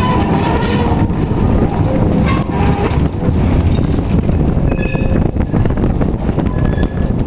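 Stockport 5, an open-top electric tram, running along its track, heard from its open upper deck: a loud, steady rumble of wheels on rail, with a couple of brief faint high squeaks a few seconds in.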